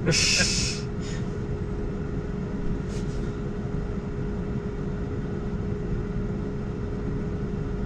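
Steady low rumble of traffic and cabin air inside a stationary electric car, with a faint steady hum. A short hiss comes right at the start, and a fainter one about three seconds in.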